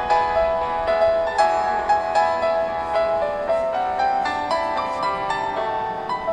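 Background music: a light piano or keyboard melody of short, evenly paced notes.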